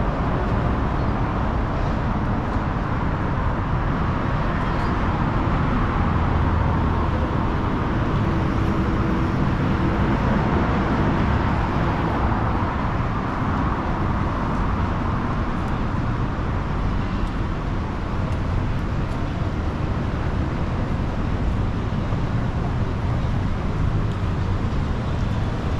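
Steady city street noise of passing road traffic, swelling a little partway through.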